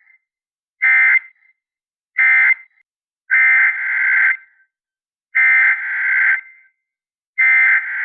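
Emergency Alert System SAME data bursts from a weather radio: harsh two-tone digital warbling sent in repeated bursts. Two short bursts, the tail of the end-of-message code, are followed from about 3 s in by three longer bursts, the header of the next alert.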